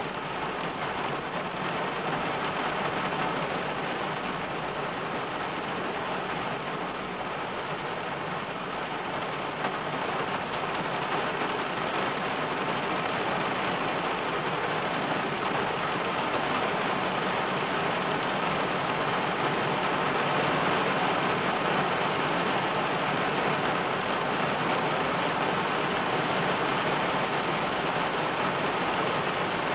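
Rain falling on a car's roof and windshield, heard from inside the car as a steady hiss that grows a little louder after the middle.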